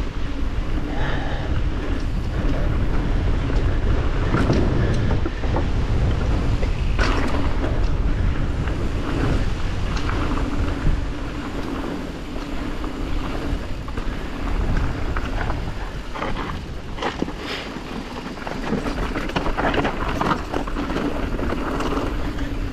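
Wind rushing over an action camera's microphone as a Yeti SB140 full-suspension mountain bike descends a dirt trail, with a heavy low rumble throughout. Frequent sharp knocks and rattles from the bike and tyres hitting roots and rocks stand out over it.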